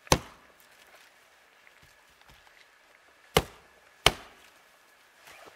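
Firewood being split into kindling: three sharp chopping strikes of a blade into wood, one at the start and two close together about three and a half and four seconds in.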